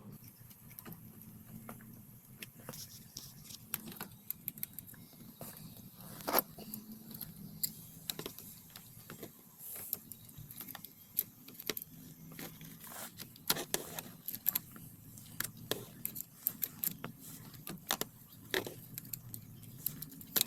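Irregular light metallic clicks, taps and rattles of small tools and parts being handled while working on the ignition switch under a steering column, over a faint steady low hum.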